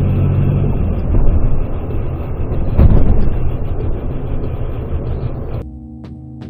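Dashcam audio of a car driving at night: steady rumbling road and engine noise in the cabin, rising to its loudest with a thump about three seconds in. It cuts off near the end, giving way to background music with steady tones and a regular tick.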